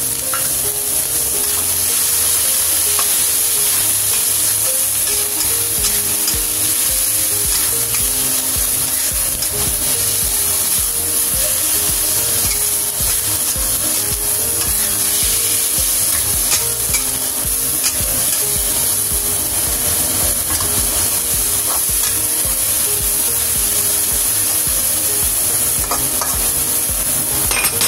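Minced beef and chopped garlic sizzling steadily in a hot wok while a metal spatula stirs and scrapes the meat around the pan, with occasional clicks of the spatula against the wok.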